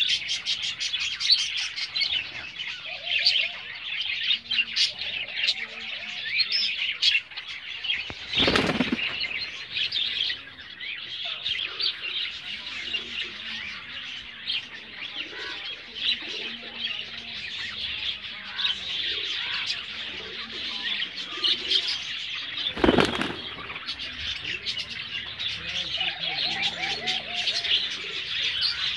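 Many small birds chirping steadily throughout, with two short loud bursts of pigeon wing flapping, one about a third of the way in and one about three quarters in.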